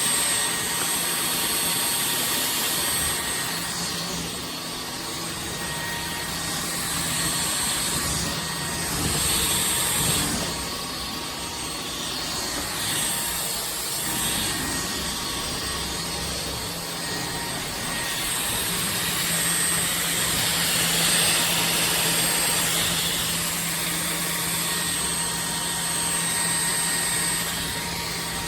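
Iirios cordless stick vacuum running, a steady motor whine over a broad rushing hiss, its loudness rising and falling a little.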